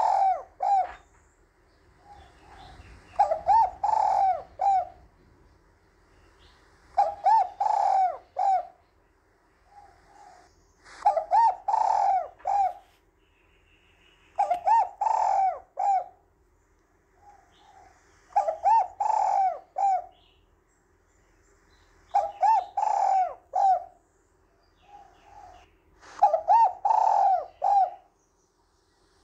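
Spotted dove singing its cooing song over and over, one rolling phrase of several coos about every four seconds, with a short soft note in the gap before each phrase.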